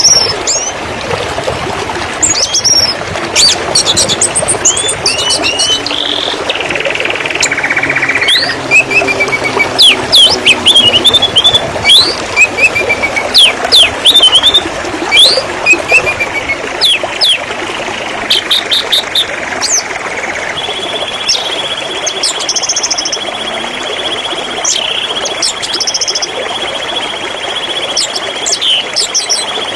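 Domestic canary singing a fast song of quick high chirps, pitch glides and buzzy trills. From about two-thirds of the way in, a long steady high note holds under the chirps almost to the end.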